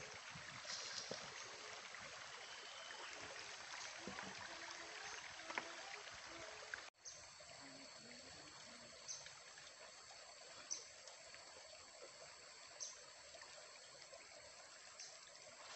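Faint steady rush of running water, like a small stream. After a cut about seven seconds in, a thin high steady whine joins it, with short chirps about every two seconds.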